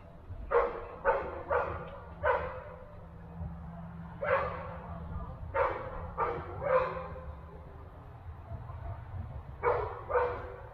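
A dog barking: about ten short barks in three bursts, four in the first two seconds, four more a little later, then two near the end.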